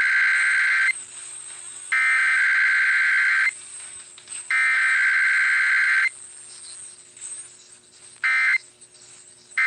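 Emergency Alert System SAME digital data bursts: three long, harsh warbling bursts of about a second and a half each, a second apart, sending the test's header code. Near the end, two short bursts of the same data tone begin the end-of-message code.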